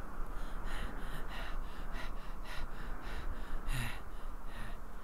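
Sound of a cartoon character running: a quick, regular series of short sounds, about three a second, over a steady hiss.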